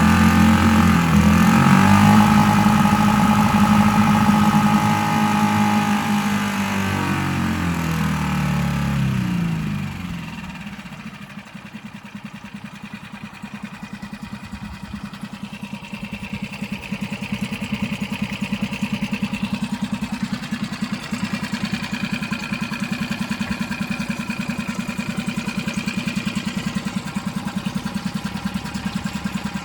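2014 Mercury 6 hp outboard motor running in a test barrel. It runs at higher revs for roughly the first ten seconds, then the revs drop and it settles into a steady, evenly pulsing idle.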